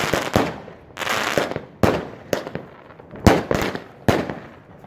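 Aerial fireworks bursting in quick succession: a string of sharp bangs, about eight in a few seconds, with crackling between some of them.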